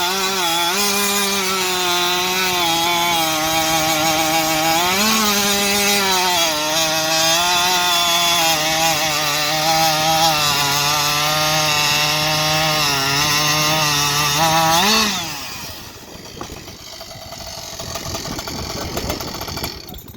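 Husqvarna 572 XP chainsaw fitted with a racing exhaust pipe, cutting wood at full throttle: the engine pitch sags under the load of the cut, lifts briefly about five seconds in, then rises sharply as the cut finishes about fifteen seconds in, after which the saw is let off and the sound drops away to a quieter hiss.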